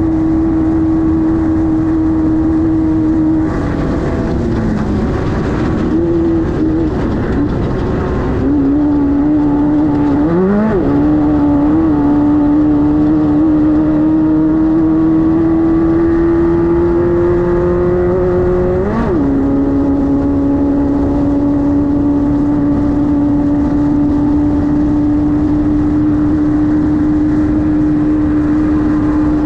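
Class 5-1600 race car's air-cooled 1600 cc VW flat-four running hard under load. The engine note wavers and dips a few times in the first dozen seconds, then rises slowly and steps down sharply about nineteen seconds in, as at an upshift, before holding steady.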